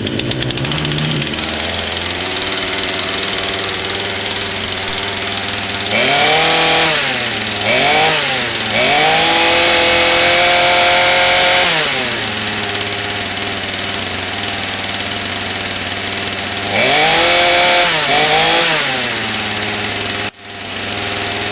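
Craftsman two-stroke chainsaw engine running after its clogged carburetor was cleaned. It idles steadily, is revved in two short blips about six seconds in, held at high revs for about three seconds, drops back to idle, is blipped twice more, and then cuts off near the end.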